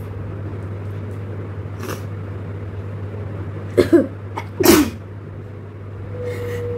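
A person sneezing with the nose tickled by a blade of long grass: a short double catch of breath, then a louder sneeze a moment later, about four and a half seconds in. A steady low hum runs underneath.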